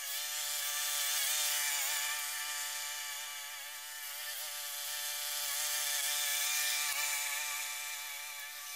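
Petrol engine of a Sabo rotary lawn mower running steadily as the remote-controlled mower drives across the grass, its pitch wavering slightly and its loudness rising and falling gently as it moves.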